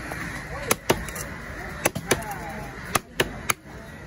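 Heavy chopper knife chopping through red snapper pieces into a wooden log block: about seven sharp chops, irregularly spaced and some in quick pairs.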